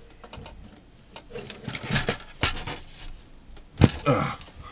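Hands handling and fitting plastic parts of a 3D-printed ring light clamp, with scattered rustles and small knocks and two sharp clicks, one about halfway through and one near the end.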